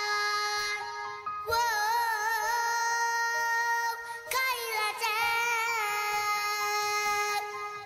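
A boy treble soloist sings long held notes with wide vibrato over sustained instrumental accompaniment. He starts a new phrase about a second and a half in and again just past four seconds.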